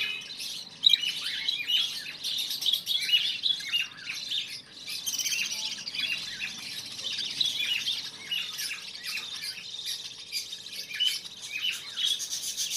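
Budgerigars chattering: a dense, continuous stream of quick chirps and squawks.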